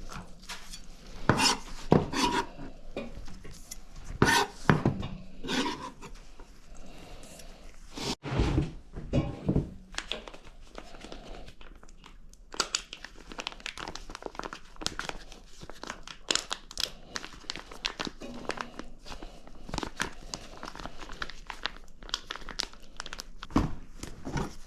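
Food-preparation handling noises: irregular knocks and clatter, with crinkling and rustling of packaging.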